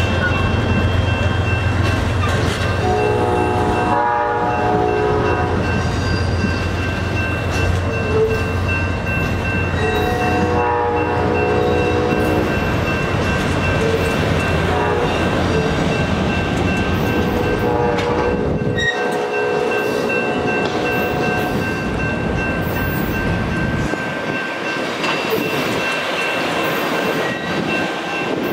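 Amtrak Coast Starlight passenger train rolling past, its bilevel Superliner cars making a steady rumble and clatter on the rails. The locomotive's multi-chime horn sounds the grade-crossing signal over it: long, long, short, long. The deepest part of the rumble drops away about two-thirds of the way through.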